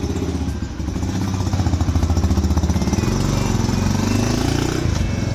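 Small Yamaha motorcycle engine running after being warmed up, then revving as the bike pulls away, its note rising about three to four seconds in.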